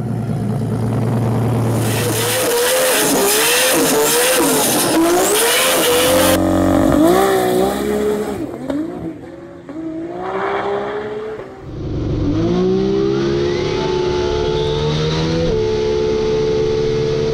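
A 2JZ straight-six drag-race Toyota Supra revs hard with its pitch wavering up and down during a smoky burnout, with tyre squeal. After an abrupt change about six seconds in, the engine later pulls hard with a steadily rising note and a gear change near the end.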